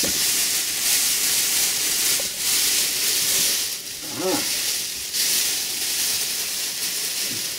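Aluminized foil emergency blankets crinkling and rustling as they are handled and pulled into place overhead, rising and falling continuously. A brief vocal sound comes about four seconds in.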